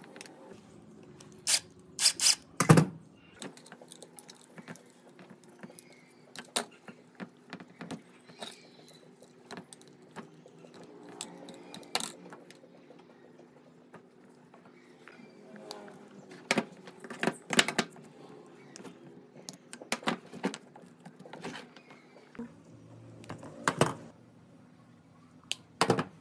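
Scattered metallic clinks, taps and clacks of hand tools and metal parts being handled, with a few sharper knocks, the loudest about three seconds in, over a faint steady hum.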